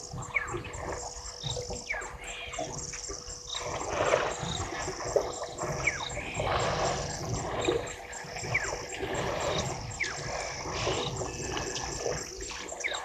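A herd of African elephants drinking at a waterhole: water splashes and trickles as they draw it up and squirt it from their trunks. Birds call over it in many short falling whistles.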